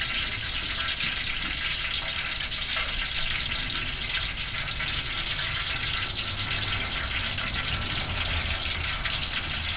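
Steady hiss over a low rumble from an outdoor propane turkey fryer, hot peanut-free frying oil sizzling in the steel pot as the freshly fried turkey drains on its hook just above it.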